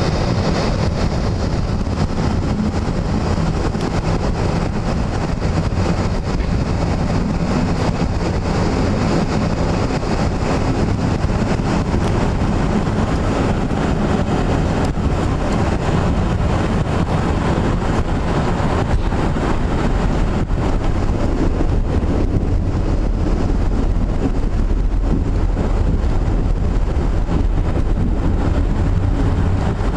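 Passenger train running along the track, heard from inside a carriage: a loud, steady rolling rumble.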